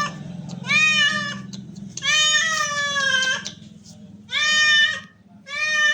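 A cat meowing four times in a row: short, high-pitched meows, the second one long and drawn out with a falling pitch.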